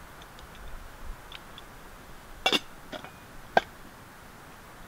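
A small camping cookpot being handled and set down, giving a few sharp clinks and knocks; the loudest is a quick double about halfway through, followed by two single clinks, over a steady low hiss.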